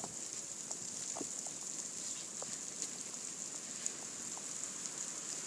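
Quiet woodland ambience: a steady high hiss with sparse faint ticks and taps, and one sharp click right at the start.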